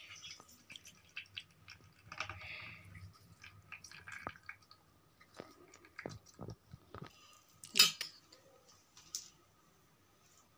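Soft wet squelching and dripping as whey is squeezed by hand out of fresh chhena curds wrapped in a muslin cloth, with scattered small clicks. One brief louder noise about eight seconds in.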